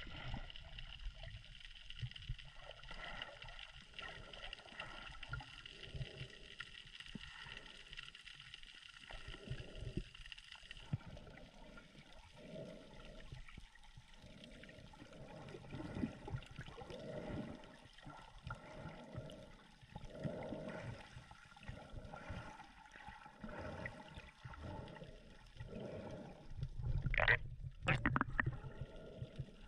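Muffled water gurgling and sloshing, as heard through a camera held underwater while snorkeling, in irregular surges with a louder splash near the end. A faint steady high hum runs under it and stops about a third of the way through.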